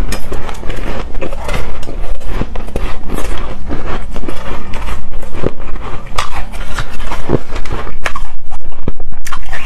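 Loud biting and chewing of a packed block of soft shaved ice, full of sharp crackles and clicks as the ice crunches.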